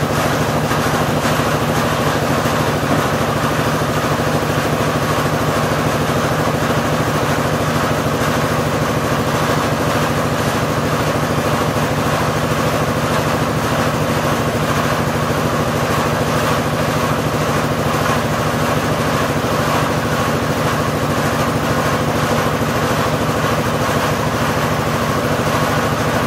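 Bore-well drilling rig running steadily at constant speed, its 6.5 hp petrol engine turning the drill string, with no change in pitch or level.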